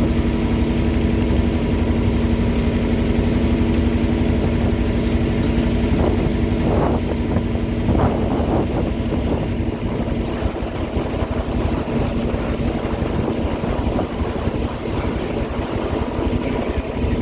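A river boat's engine running steadily at a constant speed, a low rumble with an even hum.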